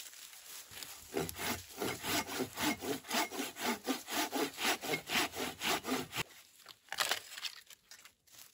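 Folding hand saw cutting through a dead log in quick back-and-forth rasping strokes, about three a second. The sawing stops about six seconds in, followed by a couple of short wooden knocks.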